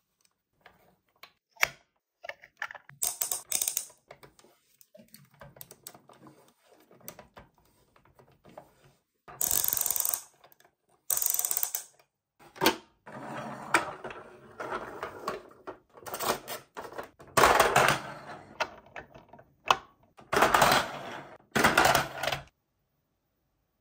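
Toys and their packaging being handled: irregular clicks and taps, with several short bursts of rustling.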